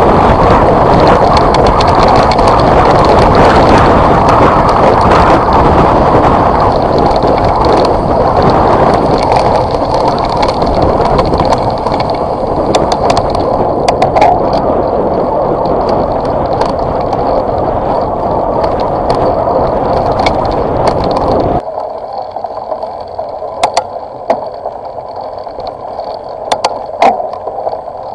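Rolling noise of a vehicle coming down a gravel dirt road: a loud, steady rush with scattered clicks and rattles from the loose surface. About 22 seconds in it drops suddenly to a much quieter rumble, the clicks and rattles now standing out.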